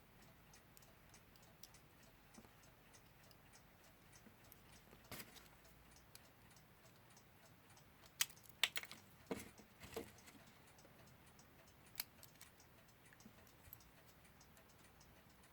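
Faint, steady clock ticking, with a few sharp clicks of small metal clock parts being handled, loudest in a cluster between about 8 and 10 seconds in.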